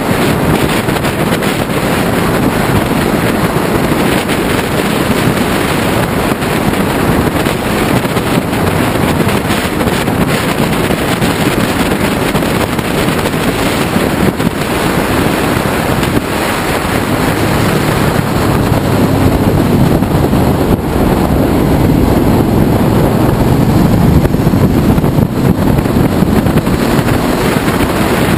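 Wind buffeting the microphone of a moving Ducati Multistrada, with the bike's V-twin engine running underneath. The engine note comes through more clearly and a little louder in the last third.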